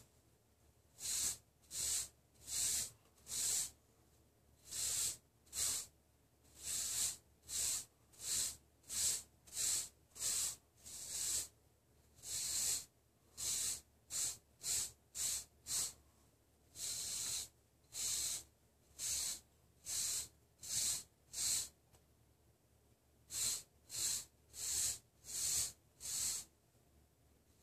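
Wave brush stroked through short, close-cropped hair on the crown: a run of short bristle swishes at about one a second, pausing once near the end before starting again.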